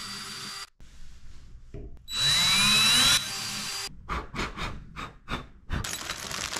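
DeWalt cordless drill/driver with a socket, running for about a second to drive a lag screw into the wall, its motor pitch rising. Near the end come quieter clicks and crinkling from a plastic bag of screws being handled.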